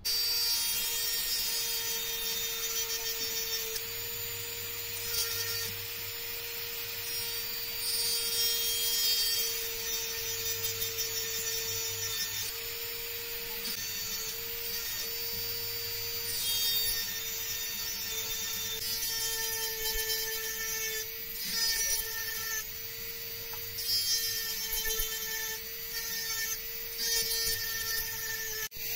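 Jeweller's rotary handpiece with a small burr running with a steady whine. A scratchy grinding sound comes and goes as the burr is pressed against the edges of a brass bracelet link.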